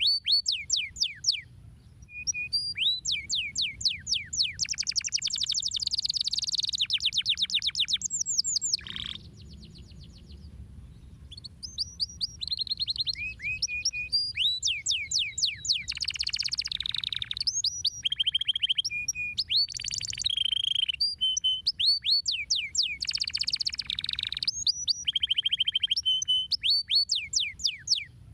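Domestic canary singing a long song of rapid trills and quick falling whistled notes, phrase after phrase, with a short pause about nine seconds in.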